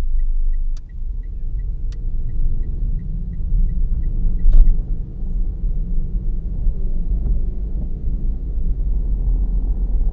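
A car being driven, a low steady rumble of engine and tyres. A faint tick repeats about three times a second for the first three seconds, and a few sharp knocks cut through, the loudest about four and a half seconds in.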